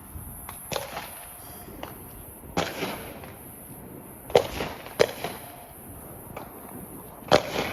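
Fireworks going off some way off: about five sharp bangs spread irregularly over several seconds, with fainter pops between them.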